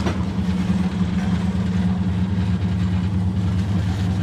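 Supermarket bread slicing machine running and slicing a loaf, its motor giving a steady low hum.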